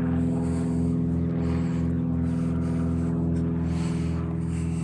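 An engine running steadily at idle, a low, even hum that does not change.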